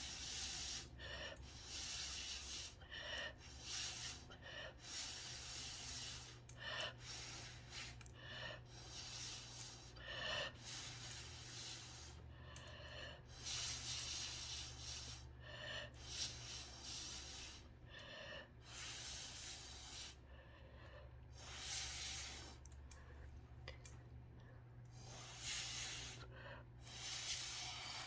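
A person breathing close to the microphone: a slow run of hissy breaths, one every second or two, over a steady low hum.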